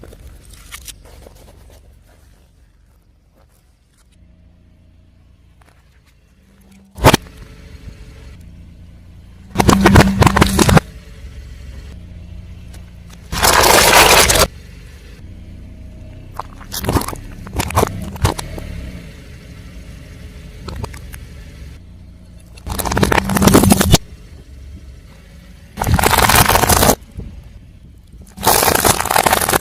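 Car tyres rolling over and crushing crunchy objects: a sharp crack about seven seconds in, then five loud crunching, crackling bursts of about a second each, with smaller crackles between them, over a low steady rumble.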